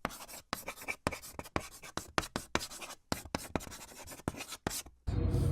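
Irregular scratchy clicks and rubbing, about three or four a second, like a pen scratching on paper. Near the end a steady low hum comes in.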